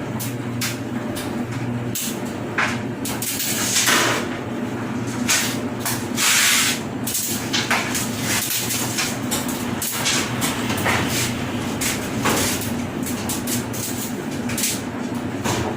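Hands working on a dryer: scattered clicks, knocks and scraping, with a couple of brief hissing swishes, over a steady low machine hum.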